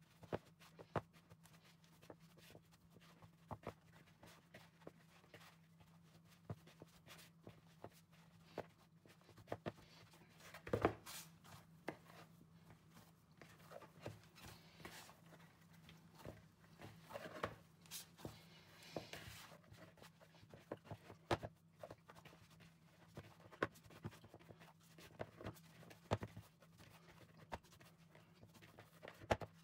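Hands kneading sticky naan dough in a plastic mixing bowl: faint, irregular soft knocks and rubbing as the dough is pressed and folded, over a steady low hum. The dough is at the stage where the excess flour is being worked in and it is firming up.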